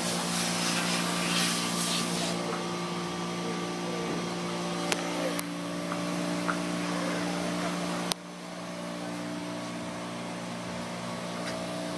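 A steady machine hum, with a hiss over it for the first two seconds and a few sharp clicks; the sound drops suddenly about eight seconds in.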